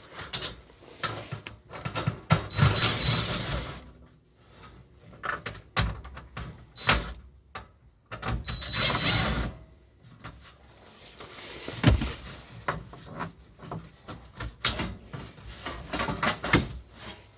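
Metal parts of an air-conditioning unit being handled and pried apart: scattered sharp clanks and knocks, with longer scraping noises about two seconds in and again near the middle.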